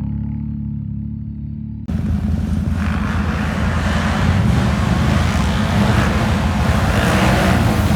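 ATV engine running low and steady, switching abruptly about two seconds in to a louder, rougher engine under throttle with a wash of broad noise that builds a little toward the end.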